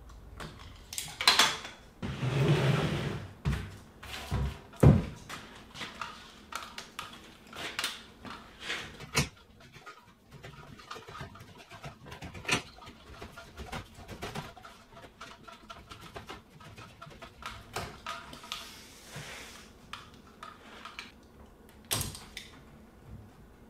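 Hand spline roller pressing rubber spline into a plastic Screen Tight track to hold insect screen, heard as scattered clicks and knocks with a louder scuffing stretch about two seconds in.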